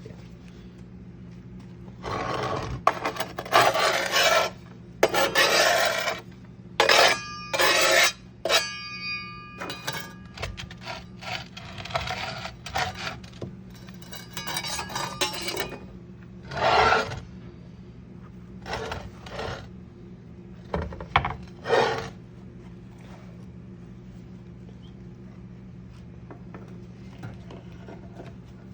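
Repeated scraping and rubbing in irregular bursts of up to a couple of seconds, with a few short metallic rings about seven to nine seconds in. A steady low hum runs underneath, and the scraping thins out after about twenty-two seconds.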